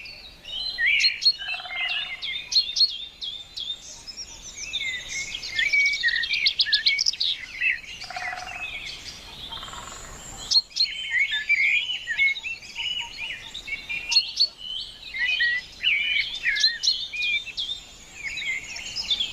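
Several birds chirping and singing at once, a dense overlapping chorus of quick high notes and short trills.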